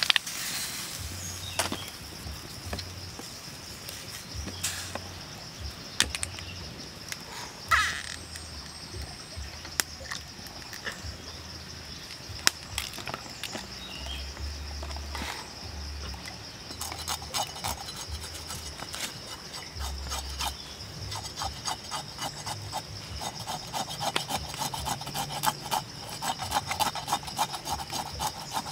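A knife blade scraping rapidly along a snake's scaly skin to clean it. The scraping strokes come many times a second and grow stronger through the second half, after scattered clicks and knocks earlier on.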